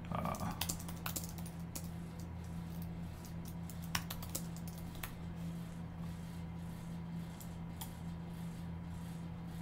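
Typing on a computer keyboard: a quick run of key clicks, then a few scattered clicks, over a steady low electrical hum.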